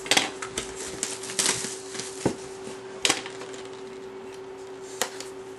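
A cardboard box of trading cards being handled and opened by hand: scattered rustles, crinkles and light taps, with a few sharper snaps near the start, about a second and a half in, about three seconds in and near the end. A steady low hum runs underneath.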